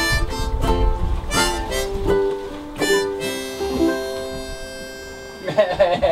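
Music: a reedy, harmonica-like melody of long held notes over plucked-string chords, heavier in the bass for the first two seconds. A voice with a wavering pitch comes in near the end.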